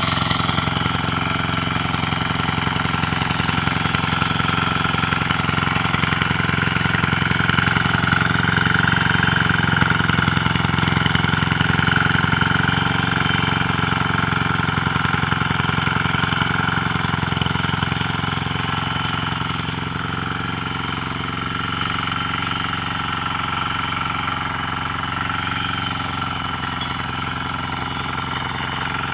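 Lombardini engine of a motor hoe (rotary tiller) running steadily at a low speed, a little quieter from about two-thirds of the way through.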